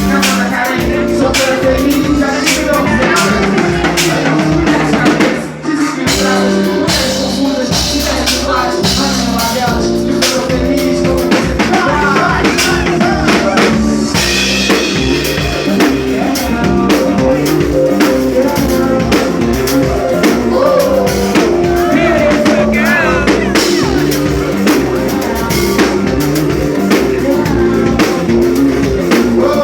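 Loud music with a drum kit beat and singing, with a short break about five and a half seconds in.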